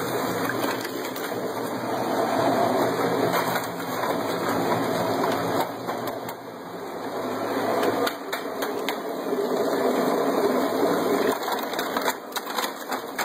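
A 1¼-horsepower garbage disposal running steadily as the motor of a homemade margarita machine, churning ice and liquid margarita mix in a drink cooler. Ice cubes tipped into the mix clatter, most sharply near the end.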